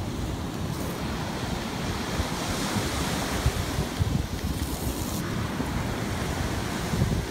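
Wind buffeting the microphone on a moving land yacht: a steady rushing rumble with irregular gusts.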